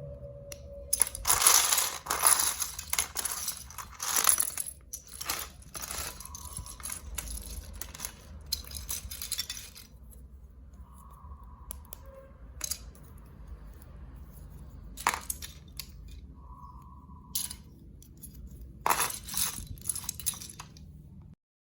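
Glass marbles clattering and rolling down a plastic building-block marble run: a dense run of rattling clicks over the first half, then scattered clicks and two short humming tones, cutting off abruptly near the end.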